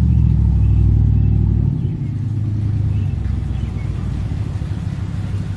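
An engine running with a low, steady rumble, louder for the first couple of seconds and then dropping back somewhat.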